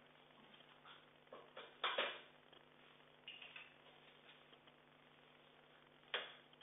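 Quiet room with a low steady hum, broken by a few short clatters and taps: a louder pair about two seconds in and another near the end.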